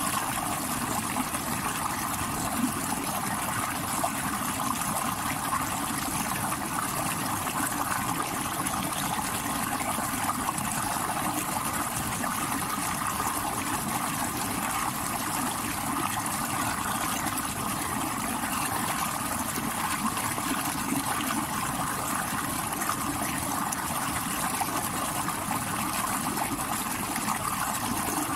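Stream water rushing and trickling over rocks: a steady, unbroken wash of splashing noise.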